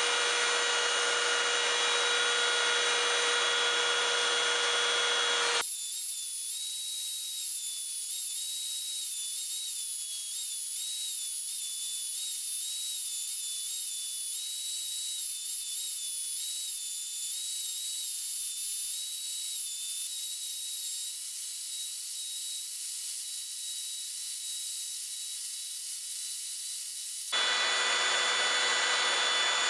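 Benchtop belt sander running steadily while a small walnut workpiece is sanded on the belt. About five seconds in the sound turns abruptly thinner and higher-pitched, a whine whose pitch dips slightly from time to time. It switches back to the fuller sound near the end.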